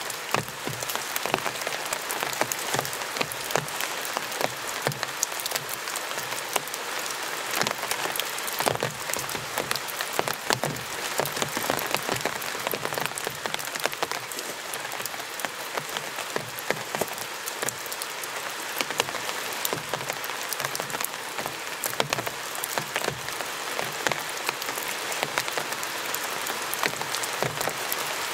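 Steady rain falling, a dense, even patter of small drop ticks.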